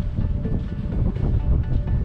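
Strong wind buffeting the microphone in a heavy, uneven low rumble, with background music playing over it.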